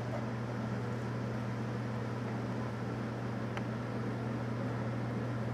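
Steady low hum with a light hiss in the background, and a single faint click about three and a half seconds in.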